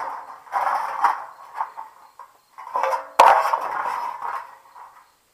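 Thin sheet-metal hood panels of a patio heater scraping and clanking against each other as they are fitted together by hand, with a sharp clank about three seconds in that rings briefly.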